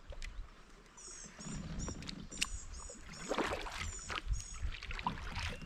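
Light knocks and water sounds from a fishing kayak's hull and gear as the angler sits and fishes. A run of short, high, repeated chirps, likely from a bird, starts about a second in.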